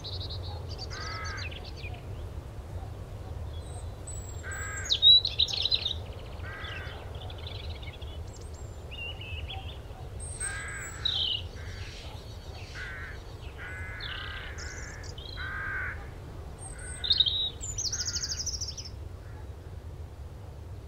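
Birds calling: short harsh caws repeated every second or two, with higher chirps and trills among them, over a steady low rumble.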